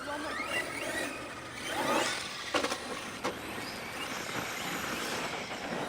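Electric RC basher truck's motor whining up and down as it takes a jump, with two sharp knocks about two and a half and three seconds in.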